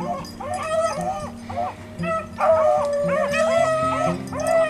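Beagles baying on a trail, a mix of short rising-and-falling bawls and longer drawn-out ones overlapping, with background music underneath.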